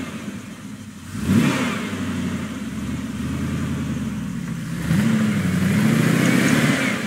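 Modified off-road Jeep's engine revving under load as it crawls through a rocky rut. A sharp rev comes about a second in, and the engine speed rises and falls again in the second half.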